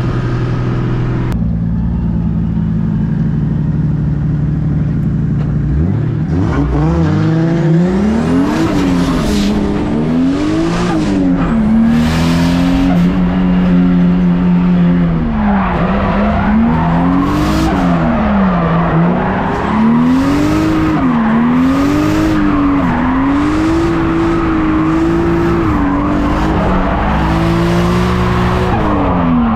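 BMW E36 drift car heard from inside the cabin: the engine holds a steady note at first, then from about six seconds in the revs rise and fall again and again through the slides. Tyre squeal joins in from about halfway through.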